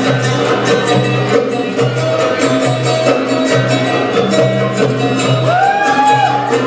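Live acoustic band music: acoustic guitars and hand drums keep a steady rhythm. A held melody note sounds over them from about two seconds in and slides upward near the end.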